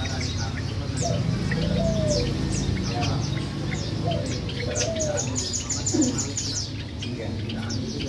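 A small flock of caged Asian glossy starlings calling. Many short, high, down-slurred chirps and whistles are mixed with a lower falling note that repeats about once a second, over a low steady hum.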